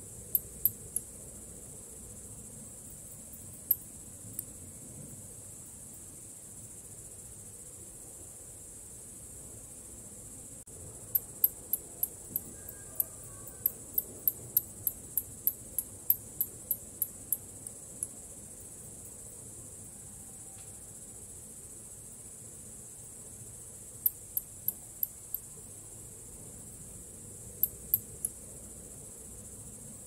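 Bats giving short, very high-pitched chirps in irregular runs: a few near the start, a long run of about twenty at roughly three a second in the middle, and a few more near the end, over a steady high hiss.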